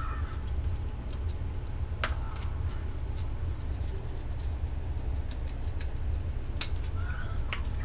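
A steady low hum with a few faint, irregular clicks and ticks as ground pepper is shaken from a metal shaker over fish in a plastic container.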